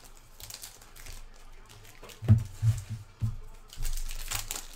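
Trading cards and foil card packs being handled: light crinkling and shuffling, with four soft thumps in quick succession about two to three seconds in as the cards are set down or squared against the table.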